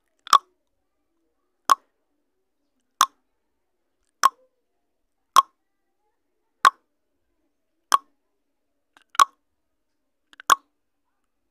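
Countdown timer sound effect: a short tick at each count, nine evenly spaced ticks about one every 1.3 seconds.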